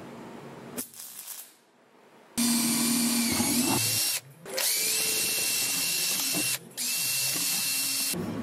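Electric drill boring into a plastic jerry can, run in three bursts of about two seconds each, its motor whine climbing each time it spins up.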